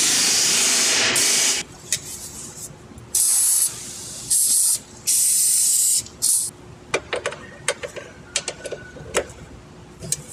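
Aerosol spray can hissing in five bursts, the first about a second and a half long and the rest shorter. Then a run of light metallic clicks and taps as a socket wrench is fitted to the bolt.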